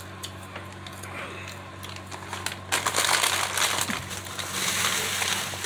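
A foil snack bag of Smartfood popcorn crinkling and crackling as it is handled in the hands, louder in the second half.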